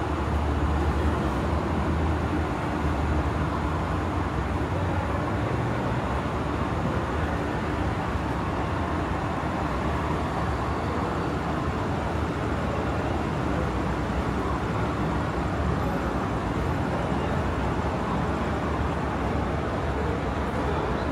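Steady street ambience of road traffic running by, with a constant low rumble.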